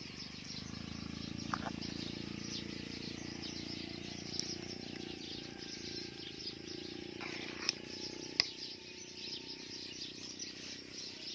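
Soup bubbling in an aluminium pot as a metal ladle stirs it, with two sharp clicks of the ladle against the pot about two-thirds of the way through. High-pitched chirping runs steadily in the background.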